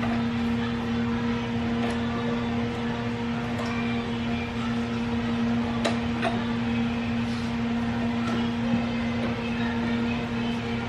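Steady machine hum on one low tone with a higher overtone, unchanging throughout, with a few faint clicks and knocks over it.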